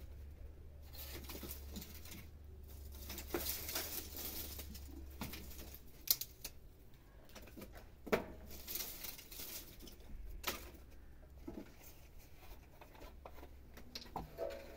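Dry branches and twigs rustling and crackling as they are handled and gathered by hand, with a few sharp snaps.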